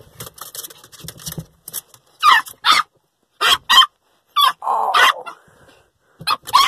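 Small dog, a Pomeranian, giving a string of short, high-pitched yelps and whines of excitement at a familiar person's arrival, beginning about two seconds in after some scuffling and rustling.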